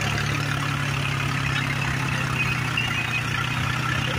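Diesel tractor engine running steadily under load, heard from on board, as the tractor drags a soil leveller through soft sandy soil.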